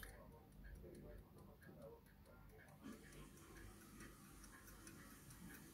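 Faint ticking of an 18th-century silver verge pocket watch running with its movement open: a fast, even tick about five times a second.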